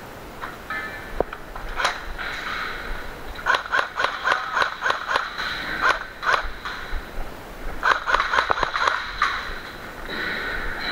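Airsoft gunfire in an indoor arena: bursts of rapid sharp clicks and pops, one group about four seconds in and another about eight seconds in.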